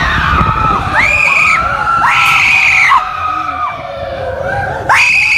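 Roller-coaster riders screaming, several voices overlapping in long, high, held screams. The loudest come at about one, two and five seconds in.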